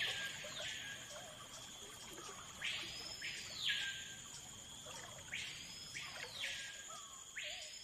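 Wild animal calls: a noisy call that sweeps up, holds high and drops back, about a second long, heard three times a couple of seconds apart. Under it runs a steady high-pitched drone typical of insects.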